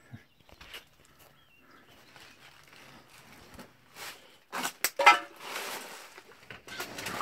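Wooden planks and boards knocking and scraping as they are handled: a few light clicks at first, a burst of sharp knocks about five seconds in, then scraping and rustling and more clatter near the end.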